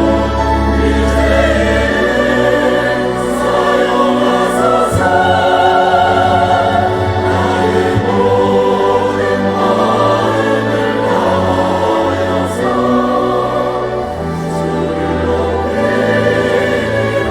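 A church choir singing a slow sacred anthem in many parts over a sustained instrumental accompaniment, its low bass notes shifting every second or two.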